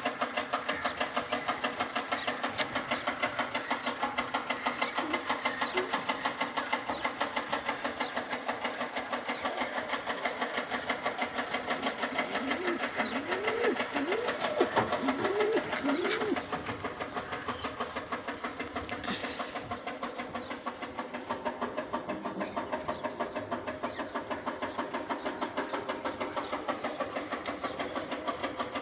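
A steady, fast rhythmic clatter from an unseen machine, with a short run of rising-and-falling pigeon coos about halfway through.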